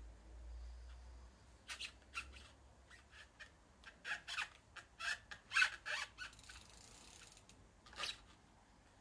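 Trials bike hopped on its back wheel on a wooden beam, giving a run of short sharp squeaks and clicks from about two to six seconds in, with one more near the end.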